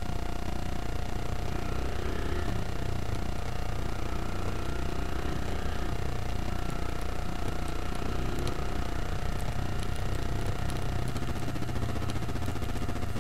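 Motorcycle engine running steadily at low town speed, heard from a camera mounted on the bike; the sound is mostly a low, even hum at a constant level.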